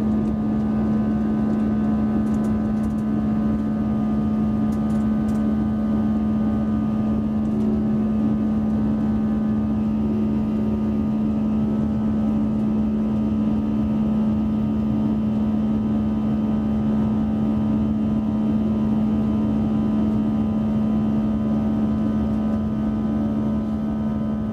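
Airbus A320 jet engines at climb power, heard inside the cabin next to the wing: a steady drone of engine and airflow noise with a strong low hum and several fainter steady tones above it.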